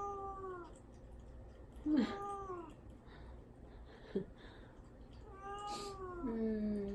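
Kitten meowing plaintively three times, each meow falling in pitch at the end and the last one drawn out longest. It is crying to be let out of the cage it is shut in. A short sharp sound comes about four seconds in.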